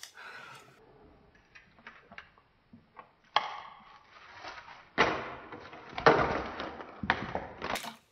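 A stack of Pringles crisps is knocked over by a tape measure and spills: several sharp clatters and rustling scatters in the second half, after a quiet start.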